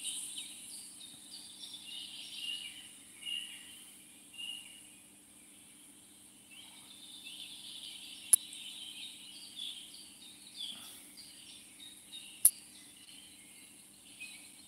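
Several birds singing, many short chirps and whistles, over a steady high insect drone; two sharp clicks stand out, about eight and twelve seconds in.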